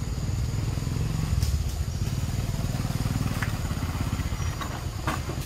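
An engine running steadily, a low rumble, with a few short sharp clicks over it.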